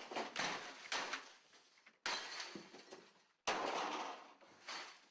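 Office equipment being smashed at a desk: sudden crashes that trail off in clatter, one about two seconds in and another about a second and a half later.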